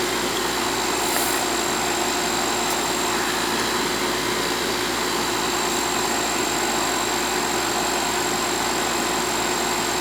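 Air-conditioning outdoor condensing unit running steadily, its compressor and condenser fan giving an even whirring noise with a constant hum.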